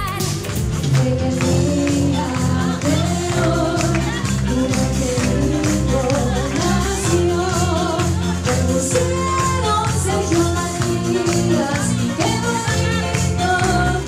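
Upbeat music with a steady beat and a singing voice.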